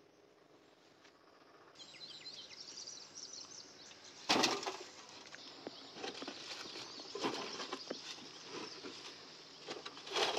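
Small birds chirping, with a loud scrape and clatter about four seconds in and irregular knocks and scrapes after it as a metal wheelbarrow is worked against earth and stones. The first couple of seconds hold only quiet room tone.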